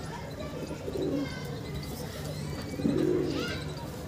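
Domestic pigeons cooing, twice: once about a second in and again, louder, about three seconds in.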